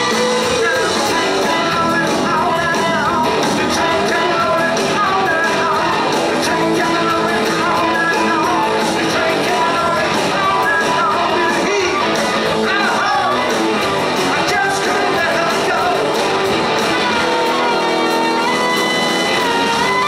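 Live rock band playing electric guitars, bass and drums, with a harmonica over them and bending lead notes.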